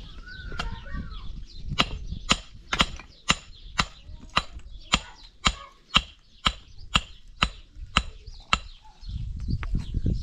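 A hand tool striking hard about fourteen times, evenly at roughly two blows a second, starting about two seconds in and stopping near the end, followed by a low rumble.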